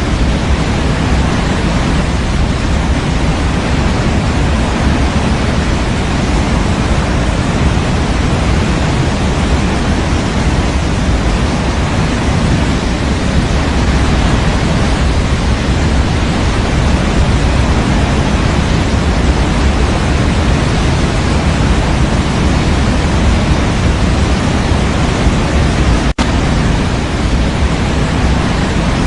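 Steady, even white noise for baby sleep, heavier in the low end. It has a split-second dropout near the end.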